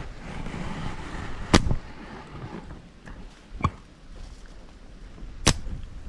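Slingshot shots: three sharp snaps of released rubber bands about two seconds apart, the first and last loudest.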